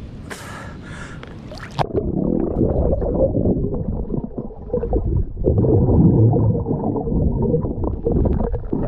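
Water splashing at a camera microphone, which goes under the surface about two seconds in. After that, muffled underwater rumbling and gurgling of water moving over the submerged mic.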